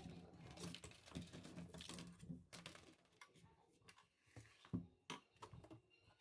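Faint, irregular clicks and light taps of small hard parts being handled, over a soft hiss.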